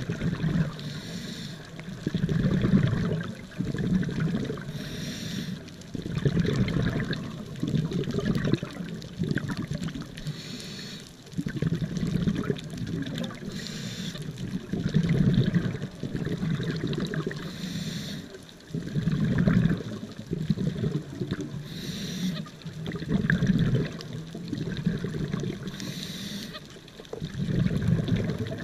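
Scuba regulator breathing heard from underwater: a short hiss of inhaled air from the demand valve about every four seconds, each followed by a longer low rumble of exhaled bubbles.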